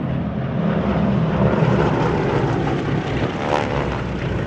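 Formation of North American T-6 Texan trainers passing overhead, their Pratt & Whitney R-1340 radial engines droning together, loudest about a second and a half in, with the pitch sweeping as they go by.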